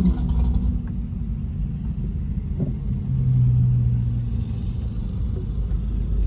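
A car engine running at low speed, a steady low rumble, with a short click a little before the middle and a low hum that holds for about a second and a half just after it.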